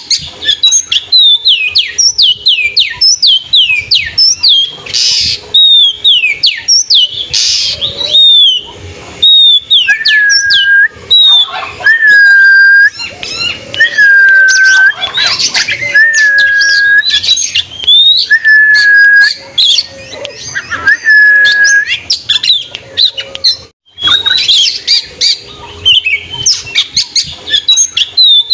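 Oriental magpie-robin (kacer) singing loudly and without pause: a rapid string of sharp, downward-slurred whistles. In the middle comes a run of about six long, level whistles at a lower pitch, then the quick notes return.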